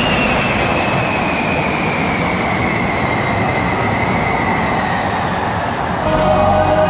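Jet engines of a low bomber formation (B-1B Lancer, B-2 Spirit and B-52H Stratofortress) passing overhead: a loud, steady roar with an engine whine that slowly falls in pitch as they go by. About six seconds in, the sound turns a little louder, with steady tones.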